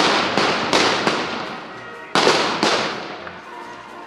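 Gunfire with blank rounds: five sharp reports in two clusters, three in the first second and two more a little after two seconds in. Each report trails off in a long echo.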